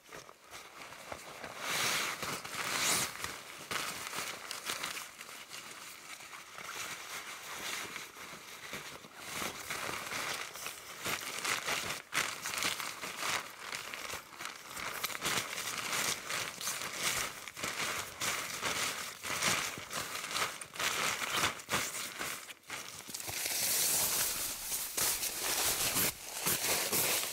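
Crinkling and rustling of shelter fabric being handled, with irregular crackles and louder bouts about two seconds in and again near the end.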